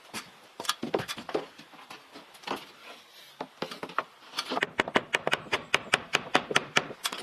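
Sharp knocks of hand work on wood: a few scattered strikes, then, about halfway through, a fast run of taps about five a second.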